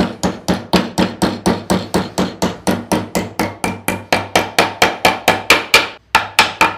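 Small hammer striking an iron strip clamped in a vise against a steel angle, bending its end over to a right angle. The blows come fast and even, about five a second, each with a short metallic ring, with a brief pause about six seconds in before they resume.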